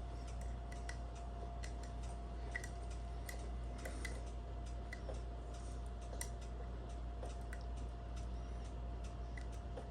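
Faint, irregular metallic ticks and clicks of a lever pick and tensioner working inside a five-lever lock, over a steady hum.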